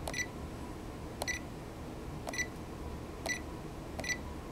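Birdog satellite meters' keypad beeping: five short high beeps, about one a second, each with a faint click as an arrow key is pressed. Each beep marks a step to the next satellite in the meter's preset list.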